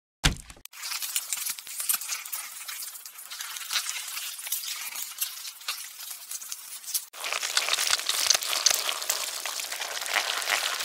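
A burger patty sizzling in a frying pan, a steady crackling hiss that breaks off for an instant about seven seconds in and comes back louder. A short thump just after the start.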